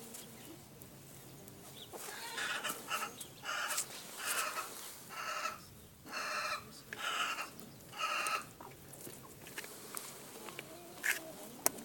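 Kalimero broiler chickens calling: a run of about seven drawn-out clucks, roughly one a second, starting about two seconds in and stopping well before the end, followed by a few faint clicks.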